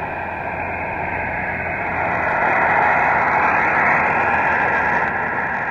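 Hiss of HF band noise from a ham radio receiver's speaker: a steady rush that stops short above the voice range and swells a little louder midway. The noise is at its loudest with the vertical antenna's coil clip on the turn found to give peak noise, the sign that the antenna is tuned to resonance.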